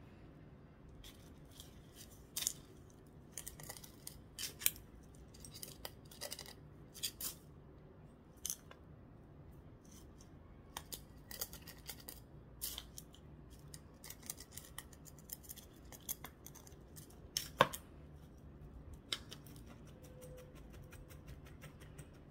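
Hands working a succulent in a small plastic pot of gritty potting mix: irregular crunches and sharp clicks of grit and plastic, with the loudest click about three-quarters of the way through.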